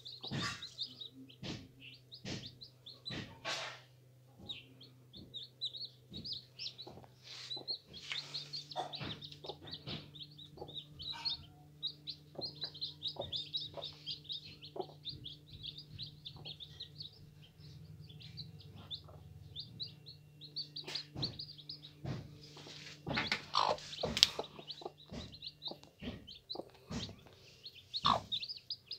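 Newly hatched chicks peeping high and almost without pause. Scattered rustles and knocks come from the straw nest, heaviest a little past two-thirds of the way through.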